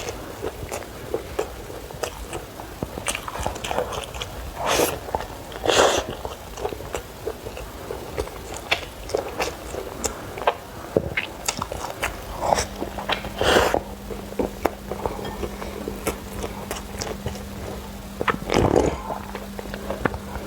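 Close-miked chewing of food: a run of small wet mouth clicks and smacks, with a few louder, longer bites or slurps scattered through.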